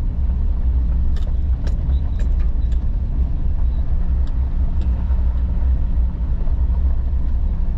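Truck driving slowly, a steady low rumble, with a few light clicks in the first few seconds.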